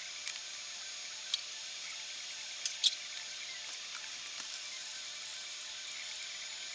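Beaten eggs with sausage and peppers sizzling steadily in a frying pan, with a few sharp clinks; the loudest, about three seconds in, is the glass lid being set on the skillet.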